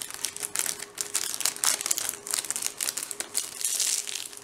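Plastic packaging crinkling and crackling in irregular bursts as a rolled diamond painting canvas is worked out of its plastic pack.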